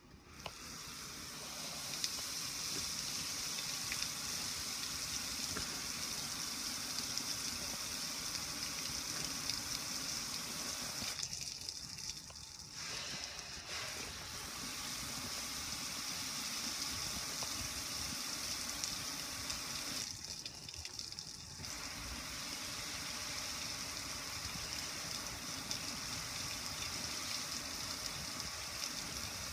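Garden hose spray nozzle spraying water onto a metal gas grill, a steady hiss and splash of water on the metal and running off onto concrete. The hiss drops off briefly twice, about twelve and twenty seconds in.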